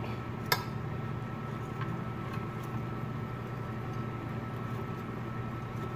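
Steady low mechanical hum of kitchen room noise with a faint high tone in it, and a single sharp click of metal tongs against a plate about half a second in, followed by a few faint ticks.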